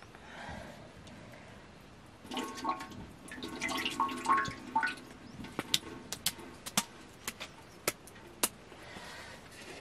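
Liquid splashing and squelching as a soft wet lump is squeezed by hand over a metal basin. Then single drips fall into the basin, each a sharp plink, one or two a second.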